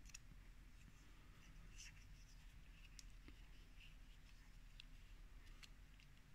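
Very faint handling noise of a folding knife turned over in the hand: soft rubs and a few small clicks.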